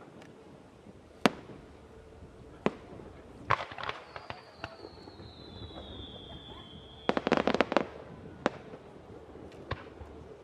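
Aerial fireworks shells going off: single sharp bangs, a long whistle falling slightly in pitch over about three seconds, then a rapid cluster of reports about seven seconds in and a few more bangs.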